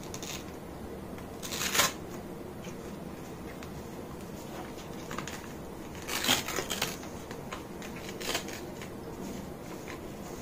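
A cloth mop pad being handled and pressed onto the plastic mop holder of a Mi Robot Vacuum-Mop P, giving a few short rustles and scrapes, loudest about a second and a half in and again around six seconds in.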